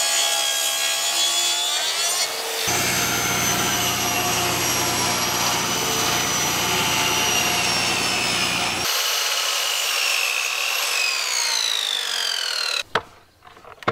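Electric saws cutting wood in quick succession: first a Makita plunge track saw's motor whine, then a table saw ripping boards. Later the saw motor winds down with a steadily falling whine and stops abruptly near the end.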